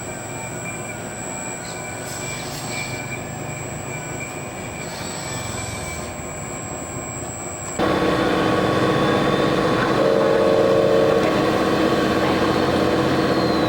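Small electric motors and gear trains of radio-controlled construction models whining steadily. About eight seconds in, the sound jumps louder and the whine shifts to lower pitches.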